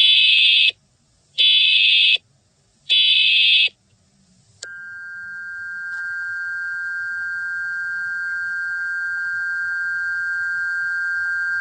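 Emergency Alert System alert lead-in: three short bursts of SAME digital header data, each under a second and about 1.5 s apart. A steady two-tone attention signal follows, starting about a second after the last burst and holding for about seven seconds. It signals that an emergency message is about to be read.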